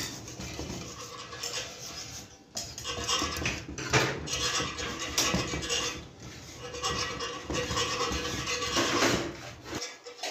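Metal parts of a hand sewing machine clinking, scraping and knocking together as a steel shaft is fitted into the machine's frame and tools are handled, with several sharp knocks.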